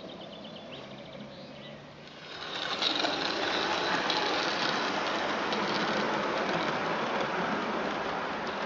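Roundhouse live-steam Darjeeling Garratt model locomotive running past close by, with a rapid sewing-machine-like patter of exhaust beats and wheel clatter on the track. The sound swells suddenly about two and a half seconds in as the locomotive draws near, then continues as the carriages roll past.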